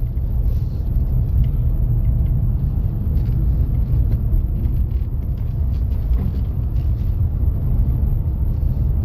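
Car driving on a road: a steady low rumble of engine and tyres, with faint scattered ticks.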